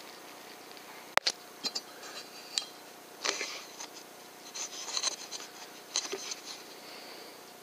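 A single sharp crack of an air rifle shot about a second in, then a few light ticks and several short bursts of rustling and scratching in straw.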